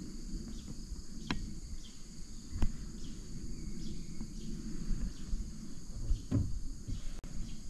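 Steady, high-pitched chorus of insects such as crickets or cicadas, over a low rumble, with two sharp knocks in the first few seconds.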